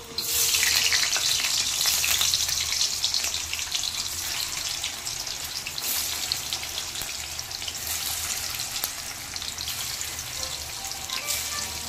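Cubes of paneer sizzling and crackling as they are shallow-fried in hot oil with a little ghee in a metal kadai. The sizzle is loudest in the first few seconds as the pieces go in, then settles to a steadier crackle.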